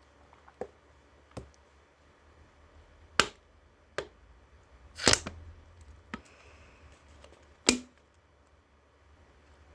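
A string of sharp, separate clicks and knocks, about seven in all at uneven intervals, the loudest about five seconds in and again near eight seconds.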